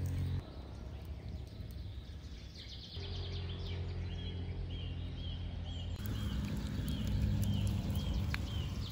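Birds calling outdoors: a run of short, arched chirps repeating about twice a second over a low steady background hum, with the background changing abruptly a few times.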